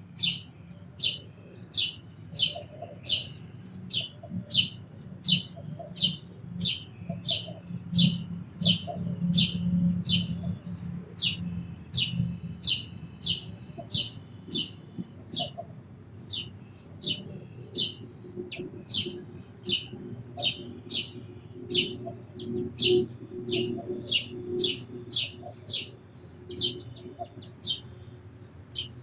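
A sparrow chirping over and over in a steady series of short, sharp chirps, about two a second, over a low rumble in the background.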